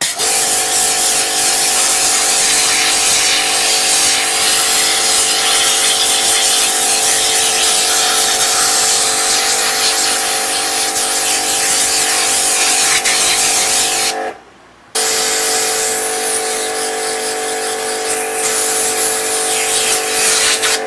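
Pressure washer running, its pump motor's steady hum under the hiss of the water jet spraying a screen-printing frame's mesh to wash out the stencil emulsion. It cuts out briefly about fourteen seconds in and starts again.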